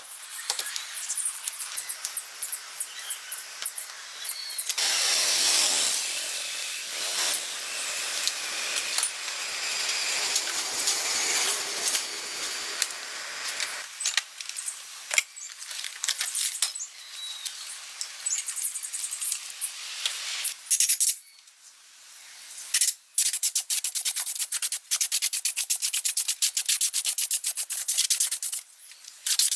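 Rubbing and scraping on a surface in uneven strokes. About two-thirds of the way in it turns into a fast run of fine clicks and ticks with brief pauses.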